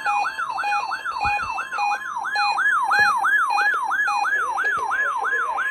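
Weather radio alert alarms going off for a weekly test: an electronic siren sweeping upward over and over, about three sweeps a second, mixed with short repeating beeps at fixed pitches from another receiver. The alarms stop together near the end.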